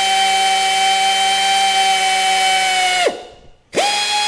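Handheld electric-style drill running at speed, boring at an angle into a broken steel stud held in a vise to make a hole for a stud extractor. A steady whine spins down with a falling pitch about three seconds in, then the drill starts again briefly near the end.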